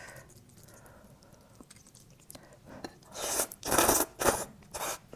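A person slurping garlic-sauce oyster and glass noodles off the shell, in four or five loud sucking bursts starting about three seconds in, after a few soft clicks.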